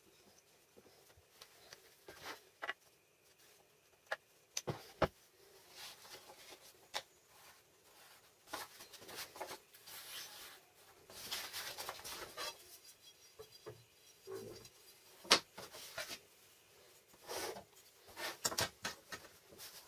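Hand work on wooden parts: scattered light knocks and clicks of wood against wood, with stretches of rubbing or scraping.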